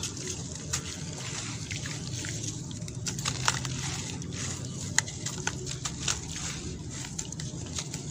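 Wet, crumbly sand-and-cement block being broken and squeezed by hand over a basin of water: gritty crunching with many small sharp crackles, and crumbs and grains dropping into the water.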